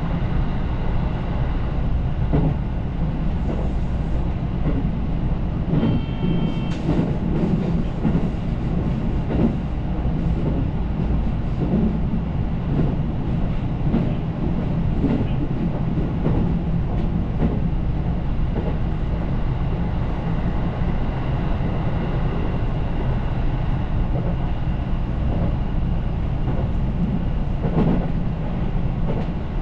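Electric train running along the line, heard from inside the train: a steady low rumble with irregular clacks of the wheels over rail joints.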